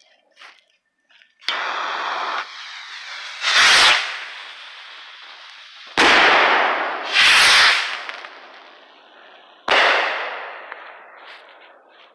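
Firework rockets launching and bursting: about five sudden, loud bangs a second or two apart, each trailing off in hiss and crackle.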